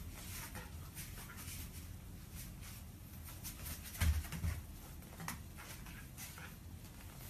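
Quiet room sounds of a dog and a toddler moving about on a floor mat: light taps and shuffles, with a soft thump about four seconds in.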